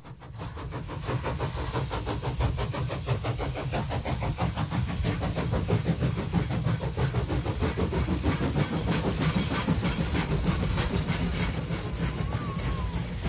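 Steam train sound effect: rapid steady chugging with continuous hissing steam.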